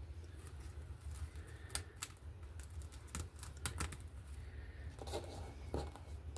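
Scattered light clicks and short scrapes of hands working small craft materials, over a low steady hum. These are most likely wire hairpins being handled and pushed into moss.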